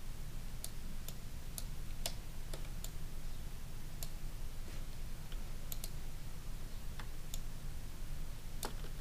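About a dozen sharp computer mouse clicks at irregular intervals, over a steady low electrical hum.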